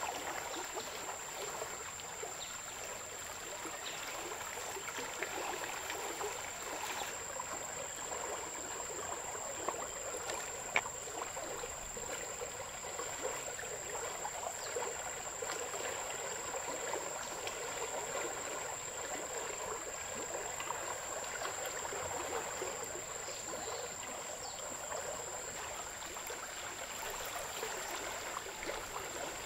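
River water flowing and rippling past rocks in a steady rush, with a steady high-pitched whine above it and one sharp click about eleven seconds in.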